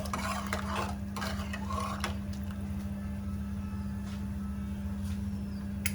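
A spoon stirring in a steel cooking pot of water with ajwain heating toward the boil, giving a few scattered light clinks over a steady low hum.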